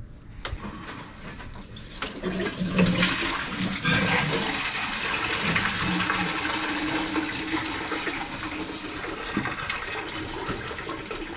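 Engine coolant (antifreeze) pouring and splashing steadily out of a pulled-off cooling-system hose, starting about two seconds in: the system being drained.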